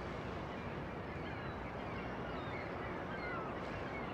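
Faint steady outdoor ambience with a low rumble, and scattered short bird calls chirping throughout.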